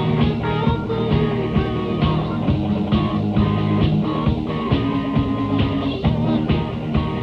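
A full rock band of drums, bass, guitars and keyboards playing together at a steady beat, captured on a rough rehearsal-room tape.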